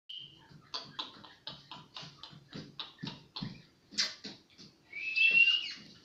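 Indian ringneck parakeet chattering in a run of short, quick calls, about four a second, then giving a loud, slightly rising whistle about five seconds in.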